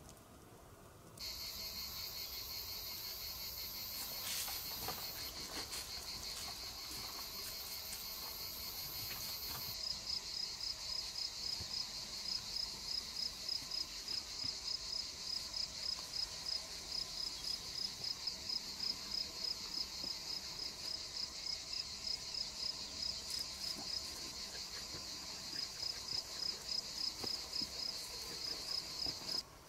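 Insects singing in a high, shrill chorus. It starts suddenly just after the beginning as a steady trill, turns about ten seconds in into an even, rapid pulsing of a few beats a second, and stops shortly before the end.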